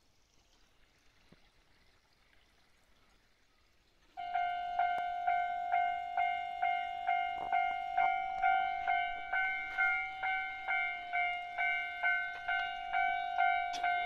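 Japanese railway level-crossing warning bell starting about four seconds in and ringing steadily at about two strikes a second, a single ringing tone with overtones: the crossing alarm warning of an approaching train.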